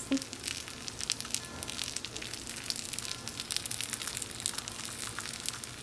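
A sope frying in hot lard, the fat sizzling and crackling with many small, rapid pops.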